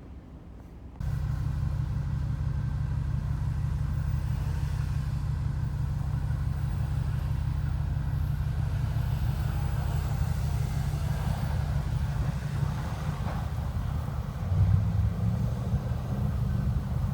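Pickup truck engine running steadily while driving. The sound jumps louder about a second in, and near the end the engine briefly grows louder.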